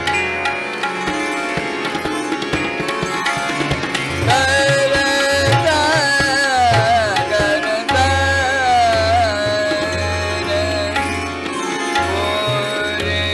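Hindustani classical khayal in Raag Gunkeli: tabla playing with deep, resonant bass strokes over a steady drone. From about four seconds in, a gliding, heavily ornamented melodic line comes in above.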